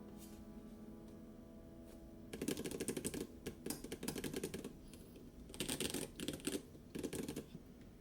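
Typing on a small mechanical keyboard with a polycarbonate plate, foam inside and KAM-profile keycaps: two runs of quick keystrokes of about two seconds each, the first starting a couple of seconds in, as the last piano notes fade out.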